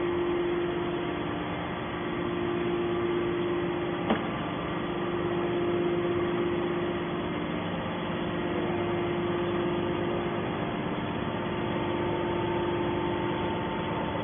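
Hydraulic aluminum-can baler running, its motor and pump giving a steady hum, with one sharp click about four seconds in.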